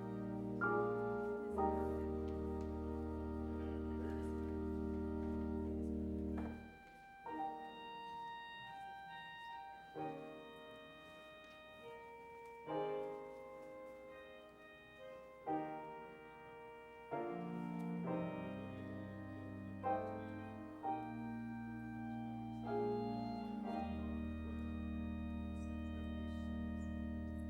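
Slow keyboard music: long held chords over deep sustained bass notes, with a thinner, quieter stretch of higher chords in the middle before the bass returns.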